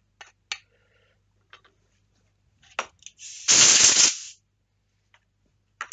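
A steel hand file and a cured resin casting being handled, giving a few light clicks and short scrapes. About three seconds in there is one loud rasping noise lasting about a second.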